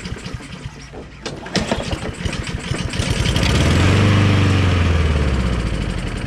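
Honda Harmony II lawnmower's overhead-cam single-cylinder engine, cranked with the pull cord, catches on starting fluid about three seconds in. It runs briefly, speeding up and then slowing and fading near the end.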